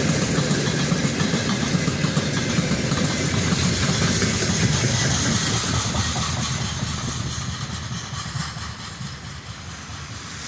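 Freight train rolling past on the rails, its wheels making a dense, rapid rumble that fades over the second half as the train draws away.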